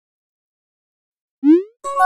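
Messaging-app sound effects: a short rising electronic chirp about a second and a half in, then, just before the end, the start of a chime of several steady tones as a new chat message pops up.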